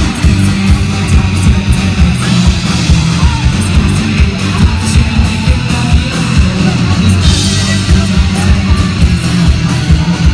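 Live rock band playing loud: electric guitars and bass guitar over a drum kit beating a steady, fast rhythm, with brighter cymbal wash from about seven seconds in.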